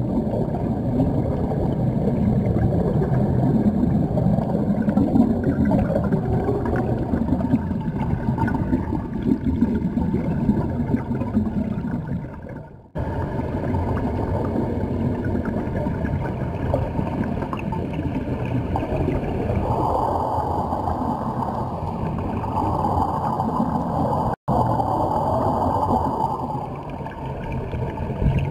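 Underwater ambience: a steady, muffled low rumble with bubbling, the air venting from sea-trek diving helmets, heard from beneath the surface. It breaks off abruptly twice, about 13 and 24 seconds in.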